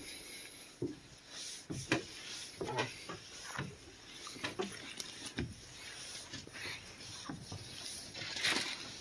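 Footsteps climbing bare open-tread wooden stairs: a dull knock about once a second as each tread is stepped on.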